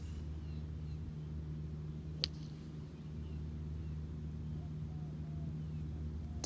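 Callaway Rogue ST Max iron striking a golf ball off turf: one sharp click about two seconds in and another right at the end, over a steady low hum with faint bird chirps.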